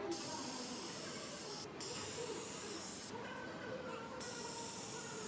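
Compressed air hissing from the pneumatic BAF cuff and hem folding device on an industrial interlock sewing machine. The hiss cuts on and off sharply: a brief break under two seconds in, then a pause of about a second near the middle before it comes back on.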